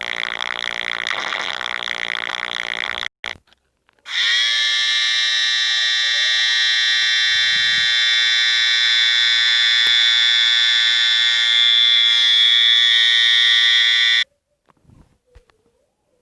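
Loud sound effects from a meme soundboard app. A harsh buzzing sound stops about three seconds in. After a short gap, a shrill, steady alarm-like tone holds for about ten seconds and cuts off abruptly.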